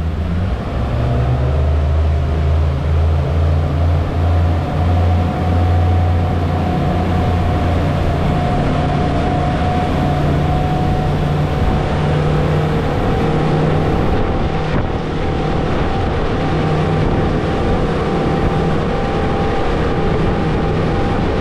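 Twin Suzuki DF200 four-stroke outboard motors being opened up to wide open throttle, pushing the boat onto plane. A deep, pulsing rumble for the first few seconds gives way to a steady engine whine that slowly climbs in pitch as the motors wind up toward about 6,000 RPM.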